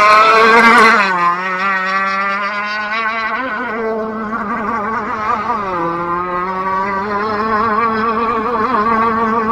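RC gas boat's two-stroke engine running at speed on the water, its pitch wavering, dipping about a second in and again near six seconds in, then climbing back.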